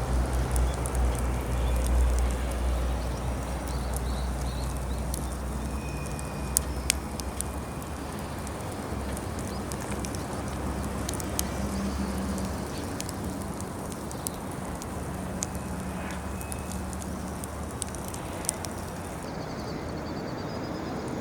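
Wood fire crackling in a fire pit, with irregular sharp pops scattered throughout, over a steady low rumble that is strongest in the first few seconds.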